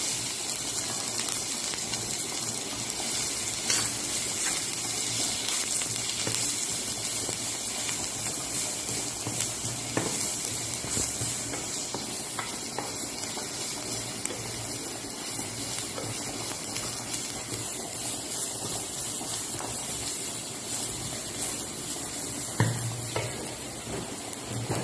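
Minced garlic sizzling steadily in hot oil in a frying pan, stirred with a wooden spatula that scrapes and taps against the pan now and then.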